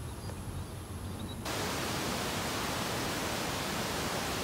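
A low wind rumble on the microphone. About a second and a half in, a steady, even hiss like static cuts in abruptly and holds.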